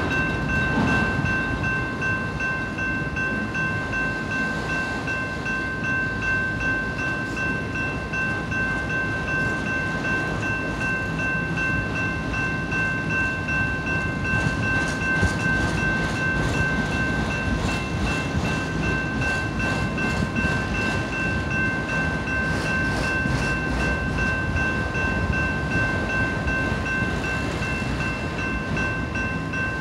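Freight train of autorack cars rolling steadily past, with a low rumble and wheels clicking over the rail joints. A grade-crossing warning bell rings without pause over it.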